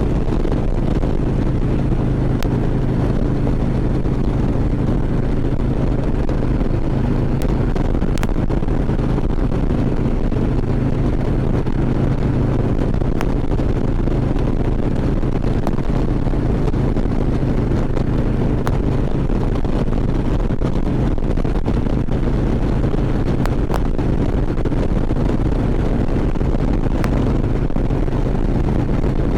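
Harley-Davidson V-twin touring motorcycle engine running at a steady cruise, with wind rushing over the helmet microphone.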